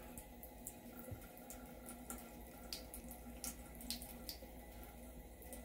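A bathroom sink tap running a thin stream of water, faint and steady, with small irregular splashes and drips.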